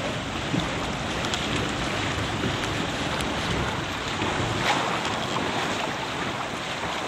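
Steady wind noise on the microphone over the wash of choppy water.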